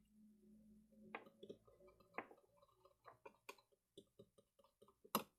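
Faint, scattered clicks and light taps of small plastic items being handled while glitter is added to the slime mix, with one sharper click near the end.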